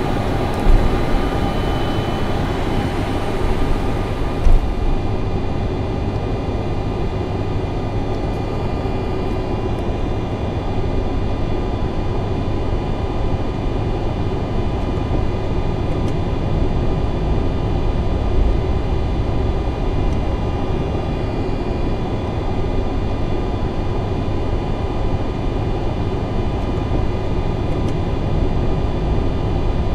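Boeing 747-400 flight-deck noise with the jet engines at idle: a steady rumble and hiss with several steady whining tones above it. The higher hiss drops away about four seconds in, and there are two brief knocks early on.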